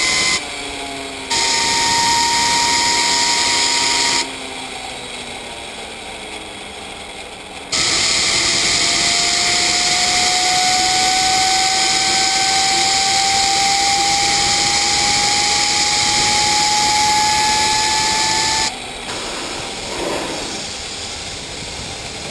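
Turbocharger spool of a homemade gas turbine being spun with blasts of compressed air from a hand-held air nozzle. There are three hissing blasts, the last lasting about ten seconds, and during it the turbo's whine rises steadily in pitch. Between blasts the spool coasts down more quietly.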